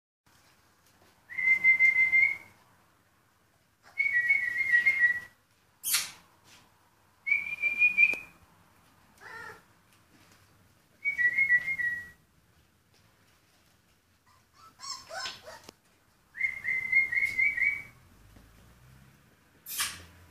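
A person whistling five held notes of about a second each, some wavering between two close pitches. Between them come short high puppy squeaks and yelps, a cluster of them about three-quarters of the way through.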